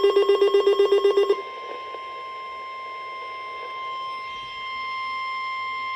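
A rapidly pulsing electronic alarm, about ten pulses a second, cuts off about a second in. A steady, high-pitched single-tone weather radio warning alert tone follows, marking an incoming severe weather warning.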